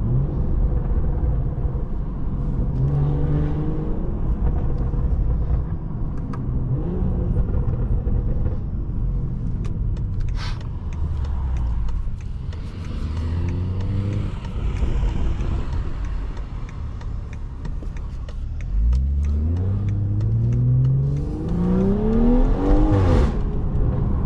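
BMW 540i's turbocharged straight-six, with a catback exhaust, downpipe and stage 2 tune, accelerating through the gears. The engine note climbs in pitch and drops back at each upshift, and the longest and loudest pull comes near the end.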